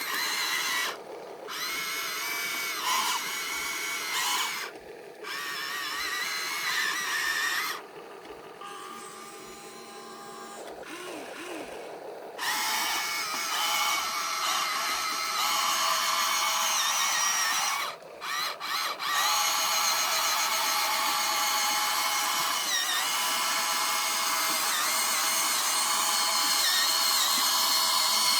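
High-pitched whine of the small electric motors of radio-controlled toy trucks driving. It cuts out briefly a few times and eases off to a quieter stretch in the first half, then runs on steadily.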